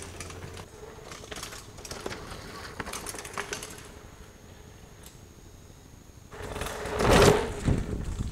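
Mountain bike riding dirt singletrack, with light rattling and rapid ticking from the bike. About seven seconds in, a bike rushes past close by, the loudest moment.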